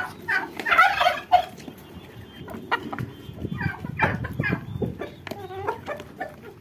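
Baladi hens clucking as they feed, in short calls about half a second and again four seconds in, with scattered light ticks of beaks pecking at a plastic feed basin.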